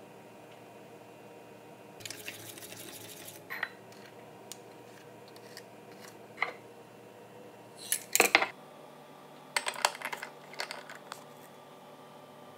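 A metal spoon scraping and clinking against a stainless steel mixing bowl as thick sauce is stirred and scraped out. The loudest clatter comes about eight seconds in, followed by a run of lighter clicks and taps.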